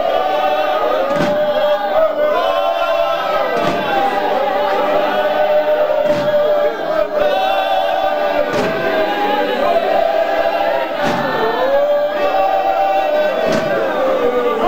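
An a cappella choir of men's and women's voices singing together in harmony, with short thuds every second or two.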